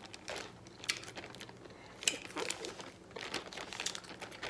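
Clear plastic zip-top bags crinkling and rustling as gloved hands handle them, in short scattered crackles.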